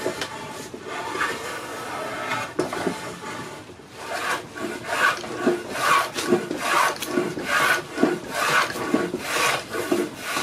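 Hand plane chamfering the edges of a square wooden post, each stroke a scraping swish as the blade shaves off wood. After a short lull about four seconds in, the strokes come quick and regular, about two or three a second.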